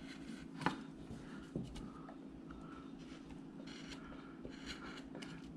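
A small number 11 (3 mm) carving gouge cutting a groove in wood: a few faint, short scraping strokes and clicks, over a steady low hum.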